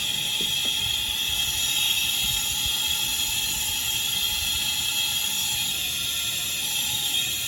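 Steady hiss of compressed air pushed into cylinder 8 of a V8 engine during a leak-down test, escaping past the piston and out through the distributor hole into the crankcase. This is the sign of leaking piston rings, as the owner reads it.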